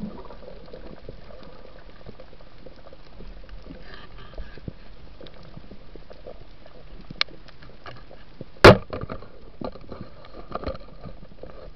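Underwater reef ambience heard through a camera housing: a steady watery hiss with scattered crackling clicks. One sharp knock comes about two-thirds of the way through, and a much louder knock follows about three-quarters of the way through.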